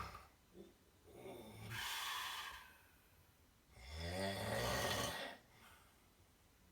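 A person snoring: two long snores, the second, about four seconds in, louder and with a pitched rattle that rises at its start.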